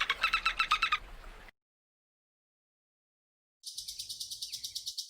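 Two separate animal calls with silence between them. First, a rapid, pulsing chirp trill stops about a second and a half in. Later, a very high, fast-pulsing buzzy trill starts and carries on to the end.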